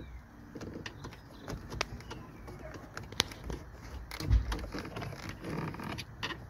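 Small clicks and taps of hard plastic door trim being handled and pressed into place, with a dull thump about four seconds in. A bird cooing in the background.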